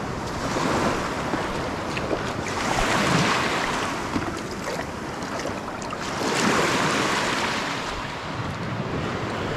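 Small waves washing up onto a sandy beach, the surf swelling about three seconds in and again near the middle, with wind on the microphone.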